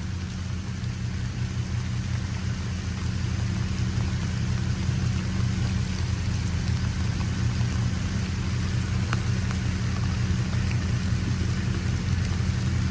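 Ford F-250 Super Duty's engine running steadily at low revs as the truck crawls slowly over a muddy trail, with an even hiss of rain throughout.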